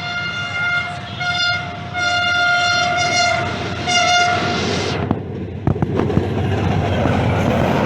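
Diesel locomotive horn sounding a chord in several blasts (a short one, a long one and a final short one), followed by the express train rushing past with a loud rumble, wheel clatter and a few sharp clicks.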